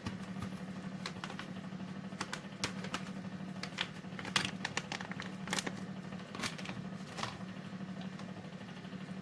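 A kitchen utensil tapping and scraping irregularly against a pot while cheese is stirred and melted into warm cream, with a steady low hum underneath.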